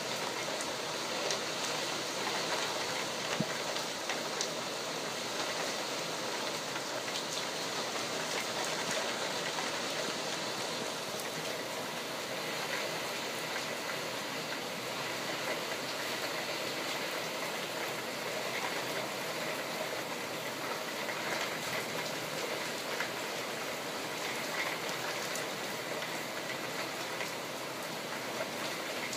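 Steady heavy rain falling, a constant hiss with individual drops ticking close by now and then.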